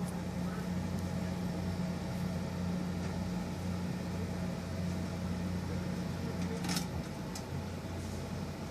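A motor's steady low hum that cuts off about seven seconds in, with a click.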